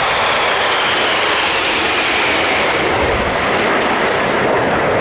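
Red Arrows' BAE Hawk T1 jets flying past low, a loud jet roar whose pitch falls steadily as they go by.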